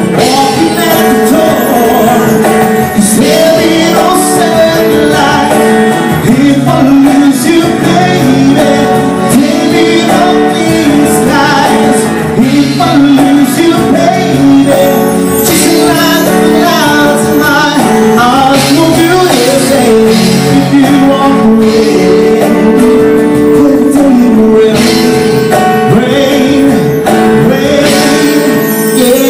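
Live band music: a man singing a slow pop ballad into a microphone over guitar and drums.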